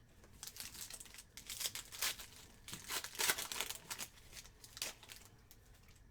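Crinkling and tearing of a foil trading-card pack wrapper being ripped open, a quick run of crackles that is loudest midway and stops about five seconds in.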